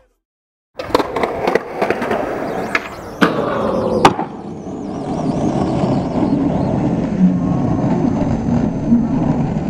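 Skateboard on concrete, starting about a second in: a run of sharp clacks and knocks as the board and wheels hit the ground, the loudest about four seconds in, then the steady rolling of the wheels over rough pavement.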